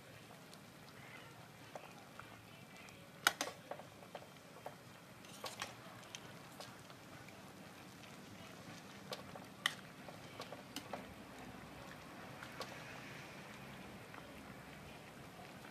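Stainless steel ladle clinking and knocking against a stainless steel soup pot as the soup is stirred and ladled: scattered sharp clinks, the loudest about three seconds in.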